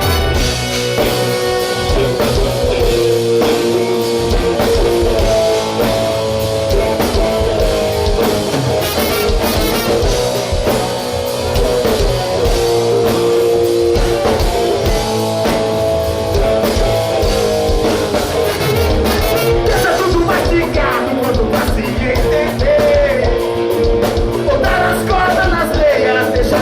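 Rock-style band music with drum kit and guitar, and some singing, playing steadily throughout.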